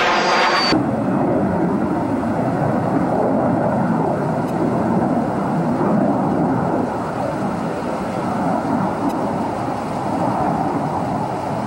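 F-4D Phantom II jet in flight, its two J79 turbojets heard from the ground: a high whine falling slightly in pitch that cuts off abruptly under a second in, then a steady deep jet roar as the aircraft banks away, easing a little past the middle.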